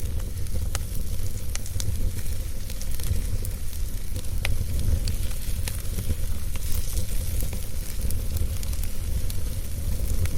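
Wood fire crackling in a fireplace: irregular sharp pops and snaps over a steady hiss, with a steady low rumble underneath.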